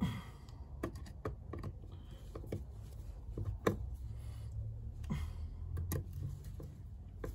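Irregular light clicks and taps of a screwdriver and fingers on a motorcycle carburettor's metal top cover as its small screws are driven in, over a low steady hum.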